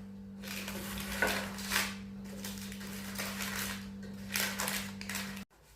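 Soft scraping and handling noises as dough is pressed into a metal baking pan, a few brief scrapes and taps. A steady low hum runs underneath and cuts off abruptly near the end.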